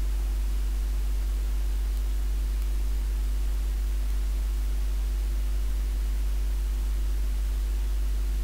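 Steady low hum with two fainter steady tones above it and an even hiss: the background noise of the recording, with no other events.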